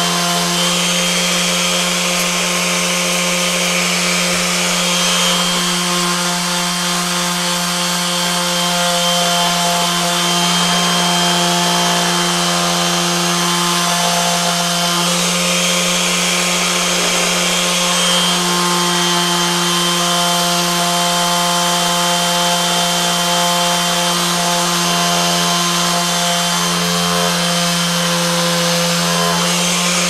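Makita cordless random orbital (DA) sander running steadily with a 1200-grit wet-and-dry pad, wet-sanding a stainless steel lock pick on a granite slab. Its hum holds steady, with small shifts in tone as the load on the pad changes.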